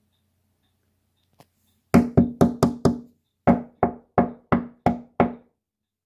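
A person knocking hard and fast on a hard surface in two rounds, five quick knocks and then six.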